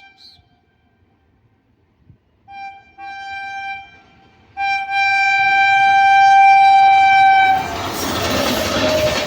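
Indian Railways locomotive horn sounding three times: a short toot about two and a half seconds in, a second blast about a second long, then a long, loud blast of about three seconds. As the horn stops, the loud rushing, rattling noise of the train passing takes over.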